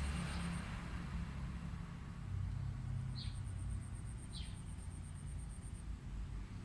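Steady low outdoor rumble, with three short high chirps falling in pitch and a fast, high, even ticking that drops out and comes back about halfway through.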